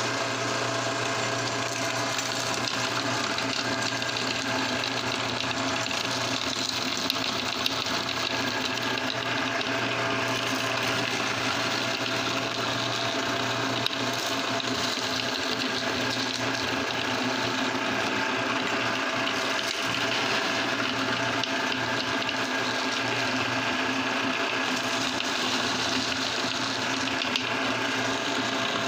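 Motor-driven meat grinder running steadily with a constant hum while candies are fed in and ground into crumbs.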